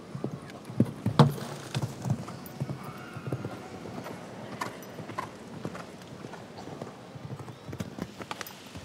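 A horse's hooves cantering on sand footing: an uneven run of dull thuds, with the loudest thud about a second in as the horse lands from a fence.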